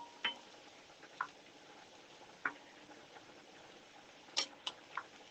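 A wooden spoon knocking and scraping against an enamelled cast iron pan while chicken pieces are stirred: about six short taps, a few with a brief metallic ring, three of them close together near the end. Underneath is a faint, steady sizzle of chicken frying in the hot pan.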